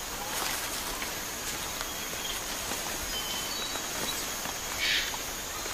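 Tropical rainforest ambience: a steady high-pitched insect drone with scattered short bird chirps, and a brief rustle about five seconds in.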